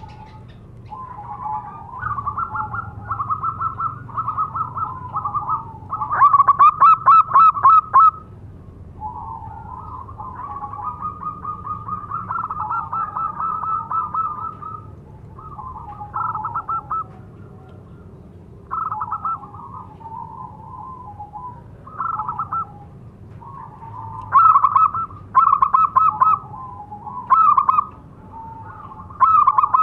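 Zebra dove (perkutut) cooing: repeated phrases of fast staccato coo notes, loudest about six seconds in and again in bursts near the end. This is its calling song, used to draw other zebra doves.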